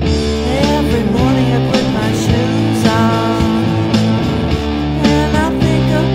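Rock music: guitars over a steady bass, with a melody of bending, sliding notes on top.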